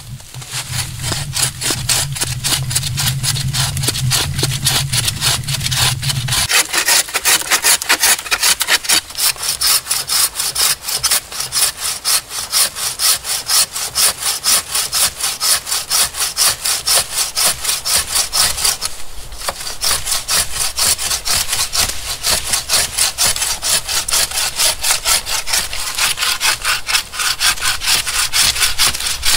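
Handmade saw cutting through dry wooden logs in fast, even back-and-forth strokes, with a short pause about two-thirds of the way through. A low steady hum sounds under the first few seconds and stops suddenly.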